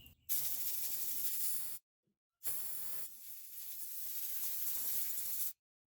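Compressed air blowing out the rear spark plug wells of a V6 engine: two long hissing blasts, the second about three seconds long, clearing out the water that was grounding the plugs and causing misfires.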